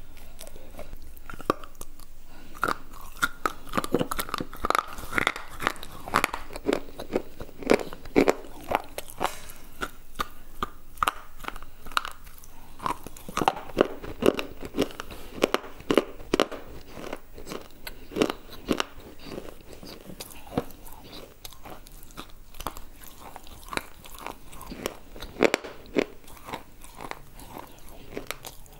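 Brittle slate bar being chewed right at a clip-on microphone: a dense, irregular string of sharp crunches and cracks as the pieces break between the teeth, thinning out a little in the last third.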